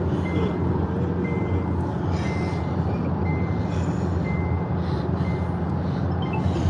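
Car cabin noise from a moving car: a steady low rumble of engine and road. A short high beep repeats about once a second.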